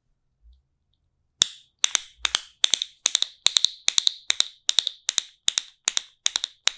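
Nuts clacking in quick groups of two or three sharp, bright clicks, starting about one and a half seconds in and repeating evenly at about two and a half groups a second. This is a galloping rhythm used as a Foley imitation of a horse running.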